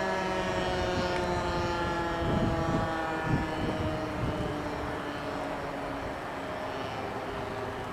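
American Signal T-121 outdoor warning siren winding down, its chord of tones sliding slowly lower in pitch and fading. A few low thumps come about three seconds in.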